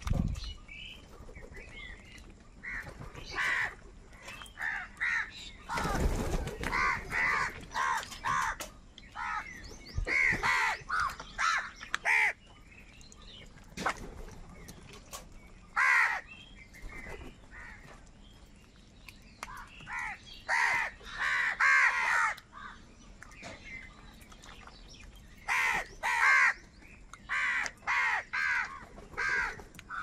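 A flock of house crows cawing: harsh calls in quick runs of three to six, with short pauses between runs.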